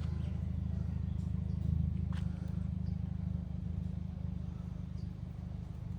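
A steady low mechanical hum with a click about two seconds in.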